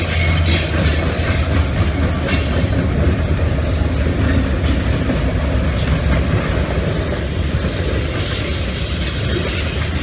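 Freight train of hoppers and tank cars rolling past close by: a steady low rumble with steel wheels clicking over the rail joints.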